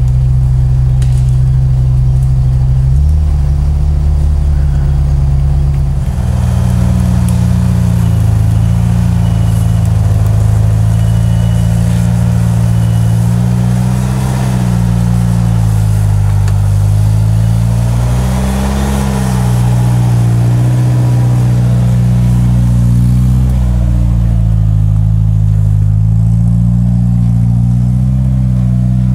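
Off-road 4x4 engines running at low revs under load, the engine note rising and falling as the trucks crawl up a steep trail, with abrupt changes in the sound a few seconds in.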